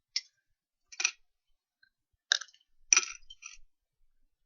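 Plastic Lego pieces clicking and clattering as they are handled: about five sharp separate clicks, the loudest about three seconds in.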